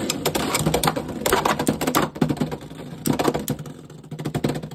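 Two Beyblade X spinning tops, Helm Knight and Dran Sword, colliding and rattling in a plastic Beyblade X stadium. Rapid clacking hits come in bunches, with short quieter lulls between them.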